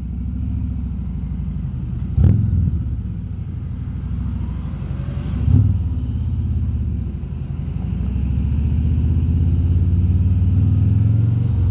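Harley-Davidson Road King Special's V-twin engine running under way with a steady low beat, with two short knocks about two and five and a half seconds in, getting louder over the last few seconds.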